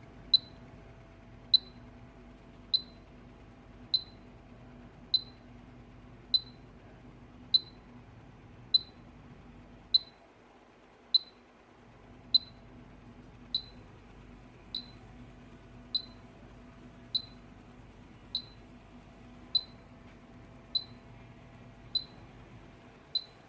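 Short, high electronic pips from the ReflowR reflow hotplate's controller beeper, repeating evenly about once every 1.2 seconds while the reflow program runs, over a faint steady hum.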